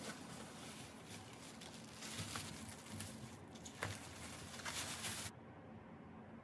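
Thin plastic bag crinkling and rustling as it is pulled off stacked foam meat trays, with a few sharper crackles. It stops suddenly about five seconds in.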